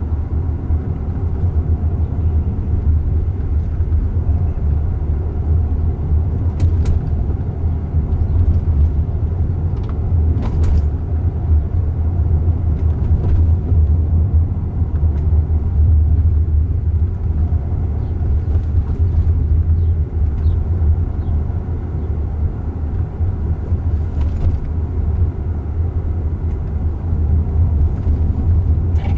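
Steady low road and tyre rumble inside the cabin of a moving Jaguar I-Pace electric car, with a couple of faint clicks about seven and ten seconds in.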